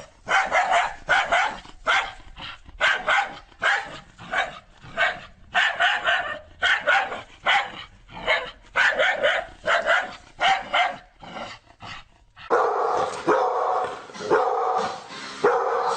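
Dog barking over and over, about two barks a second. About twelve seconds in the sound changes to deeper, closer-packed barking over a steady background.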